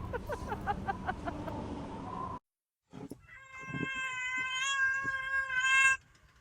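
A cat's long, steady meow held for about three seconds in the second half. Before it comes a rapid run of short, falling calls, then a moment of dead silence.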